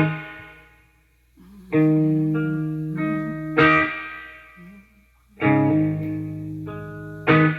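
Guitar playing a slow blues intro: five chords about two seconds apart, each struck once and left to ring out and fade before the next.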